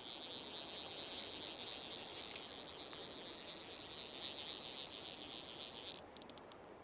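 Fly reel's click drag buzzing as a hooked fish runs line off the spool. The high-pitched ratcheting stops suddenly about six seconds in, then a few separate clicks as the spool slows.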